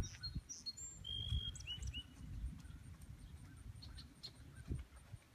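Horse's hooves thudding softly on grass at a trot, with a few short bird chirps between one and two seconds in.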